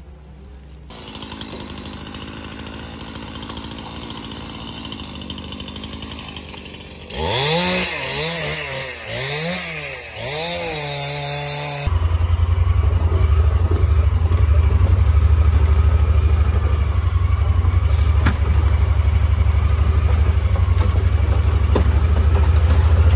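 Engines running across a run of separate clips: first a steady engine hum, then an engine revving up and down in repeated waves, then, from about halfway through, a much louder, steady low engine drone.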